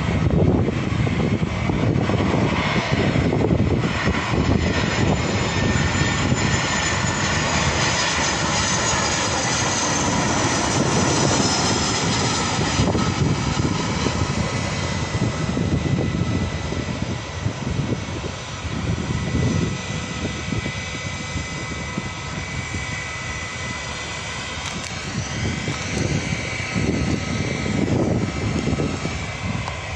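Jet engines of an Airbus A320-family airliner on approach and landing: a steady rumble under several high whining tones. The rumble eases past the midpoint, and a higher tone rises and falls a few seconds before the end.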